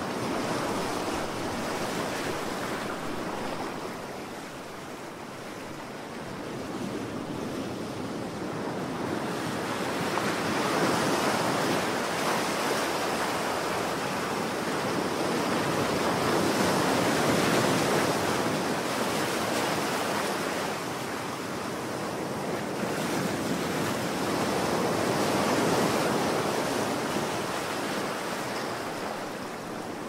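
Ocean surf: waves breaking and washing in, a steady rush that swells and eases in slow surges every several seconds.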